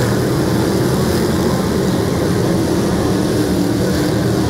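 Engines of a field of dirt-track race cars running together as they lap the oval, a loud, steady drone.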